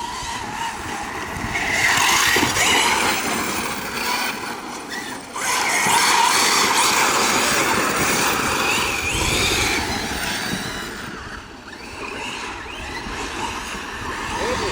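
Large electric RC cars racing past, their motors and tyres swelling loud as they pass, about two seconds in and again from about six to ten seconds.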